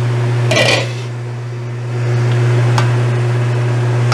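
A steady low hum runs under a simmering stew in a stainless steel pan. About half a second in comes a brief clatter of cookware, and near three seconds a single light tap as a spatula stirs the pan.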